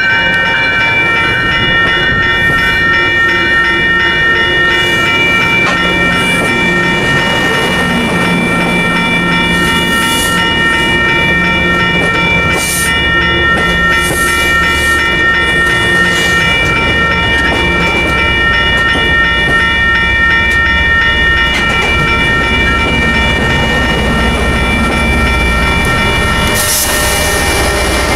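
MBTA commuter train passing close by at a grade crossing: bilevel coaches rumbling and clacking over the rails while the crossing's warning bell rings steadily. Near the end the pushing MPI HSP46 diesel locomotive passes and adds a loud rush of engine and fan noise.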